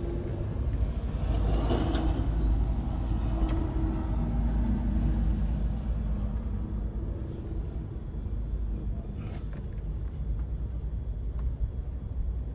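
Steady low rumble of outdoor background noise, a little louder in the first few seconds.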